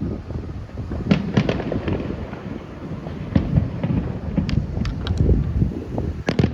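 Fireworks display going off: a scatter of sharp bangs and crackles over a low rumble. The loudest bangs come about a second in, a little after three seconds, and near the end.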